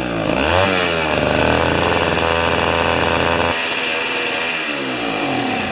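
Tecumseh two-stroke snow thrower engine running hard, its speed rising and falling. It changes note about halfway through, then slows with a falling pitch near the end as it winds down.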